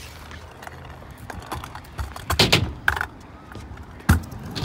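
Stunt scooter rolling over concrete and ramps, with a clatter of knocks about halfway through and one loud sharp bang near the end as the deck and wheels come down hard, as in the landing of a trick off a box.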